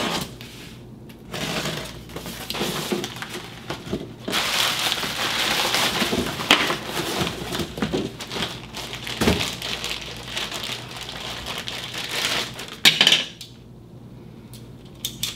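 A cardboard shipping box being cut open and unpacked: a knife slitting the packing tape, then a long stretch of cardboard and plastic packing rustling and scraping, with scattered clicks and one sharp clack near the end as a pistol case is opened and the pistol handled.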